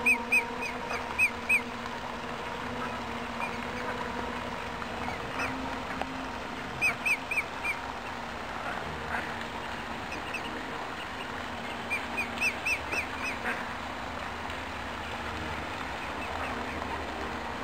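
A duck calling in three quick runs of four or five short, high calls: one at the very start, one around seven seconds in and one around twelve to thirteen seconds in.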